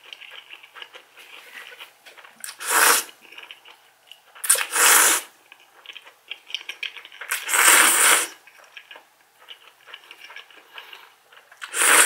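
Instant ramen noodles slurped from chopsticks, four loud slurps a few seconds apart, with faint wet chewing between them.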